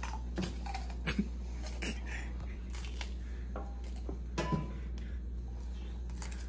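Faint mouth noises and a few small clicks from a man holding a bitten jalapeño in his mouth, over a steady low hum, with a brief louder noise about four and a half seconds in.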